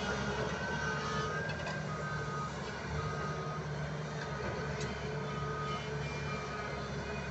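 A reversing alarm on heavy machinery beeps in a steady alternating pattern over the low, steady running of a diesel engine.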